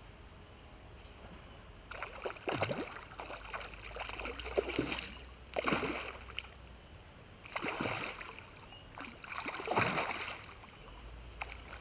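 A hooked trout thrashing and splashing at the surface, close in, on a fly line. Five or so separate bouts of splashing, starting about two seconds in.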